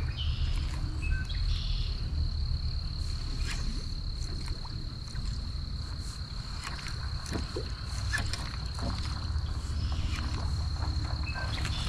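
Steady high-pitched insect trill, like a cricket, held without a break over a low rumble, with scattered faint clicks.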